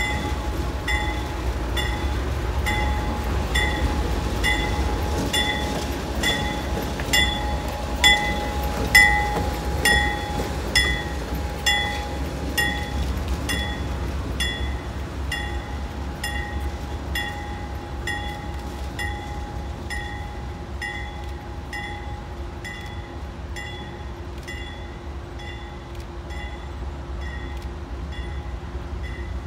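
Diesel locomotive moving slowly past on its own, its engine rumbling low, with a cluster of wheel clacks over rail joints between about seven and thirteen seconds in. A bell rings steadily about once a second throughout, gradually fading as the locomotive pulls away.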